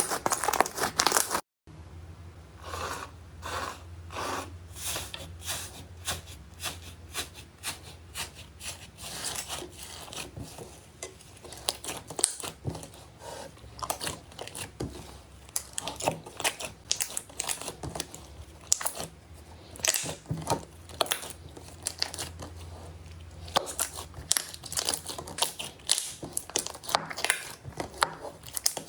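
Slime being squeezed and pressed by hand, a run of crackly, crinkling crunches and small pops. About one and a half seconds in the sound cuts out briefly, and the crackling that follows is quieter, over a steady low hum.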